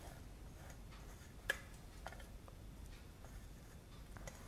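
Faint, scattered light clicks of wheat grains and loose husks tapping and sliding on stainless steel plates as the plate is tilted and brushed by hand to separate the husks. One sharper click comes about a second and a half in.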